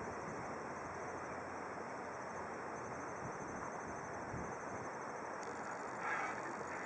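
Steady wind and open-air riverbank ambience, with a brief bird call about six seconds in.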